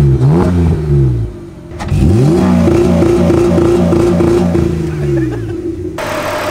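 BMW E36 328i's inline-six engine revved in neutral: two quick blips that drop back between them, then about two seconds in a longer rev that climbs, holds for a few seconds and falls back.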